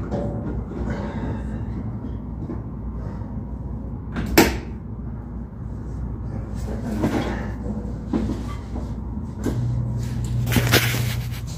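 Scattered clicks and knocks from hands working on a wall-mounted cold room controller box, one sharp knock about four seconds in the loudest, over a steady low hum of running refrigeration equipment. Rustling handling noise near the end as the phone is picked up.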